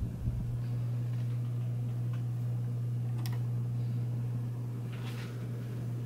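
Montgomery Ward (Evergo) ceiling fan running, its motor giving a steady low hum, with a few faint clicks.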